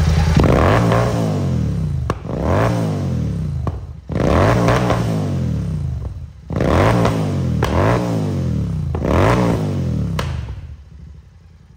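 Royal Enfield Continental GT 650's parallel-twin engine revved in a series of about six throttle blips, each rising and falling in pitch. Sharp pops come from the exhaust as the revs drop, the pops and bangs of a freshly flashed Code 6 tune. The engine sound dies away near the end.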